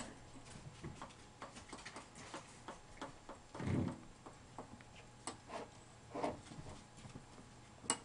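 Basenji puppies' claws clicking irregularly on a hardwood floor as they walk and play, with a couple of louder rustling bursts, the biggest about three and a half seconds in.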